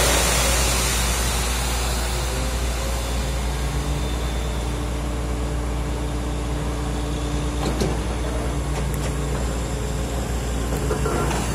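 Steady low rumble of a vehicle engine running, with faint humming tones coming and going in the middle and a couple of light clicks about eight seconds in.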